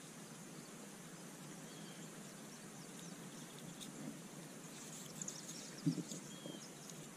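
Quiet outdoor background noise with a few faint bird chirps. From about five seconds in, light clicks and rustling of fishing line being threaded through a plastic peg float, with one sharper knock near six seconds.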